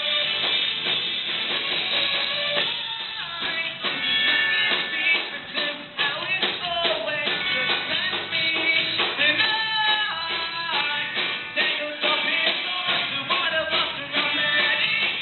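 Rock band playing: electric guitars and drum kit, with a singing voice over them.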